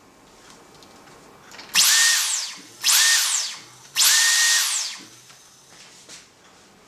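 Dyson vacuum cleaner motor run in three short bursts, about a second each: a loud airy whine with a high whistle gliding downward at each start, stopping between bursts.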